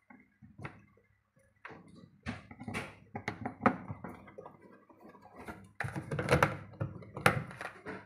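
Irregular knocks, taps and clicks of hands working on a top-loading washing machine's casing and fittings, coming in clusters, busiest about two to four seconds in and again near the end.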